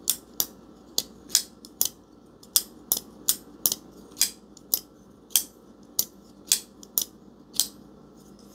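Vosteed Mini Nightshade crossbar-lock folding knife being flicked open and shut over and over, a quick run of sharp clicks about two a second as the bearing-mounted blade swings out and the lock snaps home.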